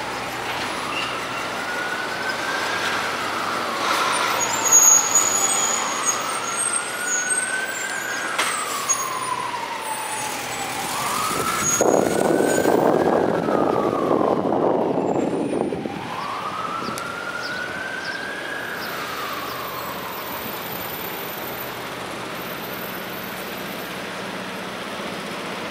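An emergency vehicle siren wails in slow rising and falling sweeps, about five seconds each, over city street traffic. It fades away about twenty seconds in. A louder rush of traffic noise swells up in the middle.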